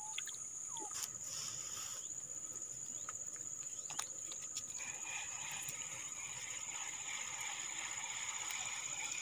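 Faint open-air ambience at the water's edge: a steady high-pitched whine throughout, a few soft clicks, and a fuller hiss that comes in about five seconds in.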